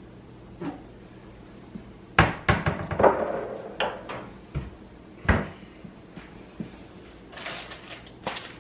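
Kitchen handling noises: a series of sharp knocks and clunks, then a short rustle near the end.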